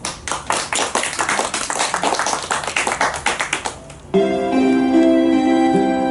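Audience clapping for about four seconds, then instrumental music starts suddenly with steady, held chords.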